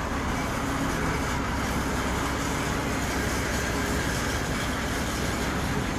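Allis-Chalmers tractor engine running steadily at idle, a constant low hum with no change in speed.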